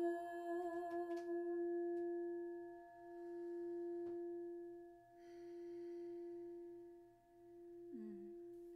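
Heart chakra Tibetan singing bowl, rimmed with a wooden mallet until about a second in and then left to ring: one steady low hum with a few higher tones, the upper ones dying out first. The ring swells and fades in slow pulses about every two seconds as it decays.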